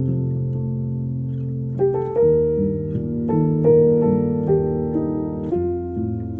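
Soft background music: piano or electric piano playing sustained chords that change every second or two.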